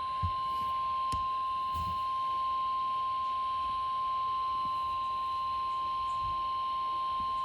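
NOAA Weather Radio warning alarm tone: the single steady 1050-hertz alert tone, held without a break, through a weather radio's speaker. It signals that a warning message is about to be read, here a flash flood warning.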